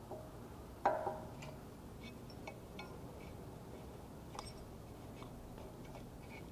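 Small metal clicks and light ticks as a throttle linkage rod and return spring are worked onto a Honda small engine's carburetor. The loudest is one sharp metallic clink with a short ring about a second in.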